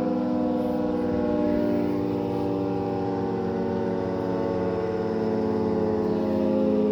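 FS&S 3T22 electromechanical outdoor warning siren winding down after a test: a steady chord of tones slowly dropping in pitch as the rotor coasts down.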